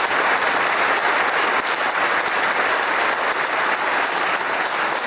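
Audience applauding steadily, one long unbroken round of clapping.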